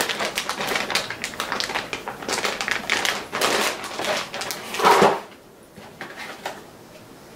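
Clear plastic zip bags of RC kit parts rustling and crinkling as they are handled, with small parts clicking inside. About five seconds in there is one louder knock, then the handling goes quieter.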